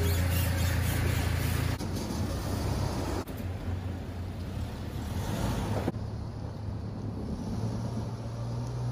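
Small pickup truck (Toyota Tacoma) running on the road: a steady low engine hum with road noise, changing abruptly a few times and growing quieter.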